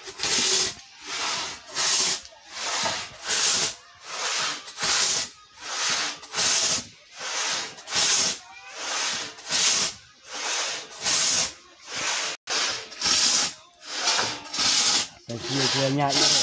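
Two-man pit saw ripping a log lengthwise: long rasping strokes of the blade through the wood in a steady rhythm, about three strokes every two seconds.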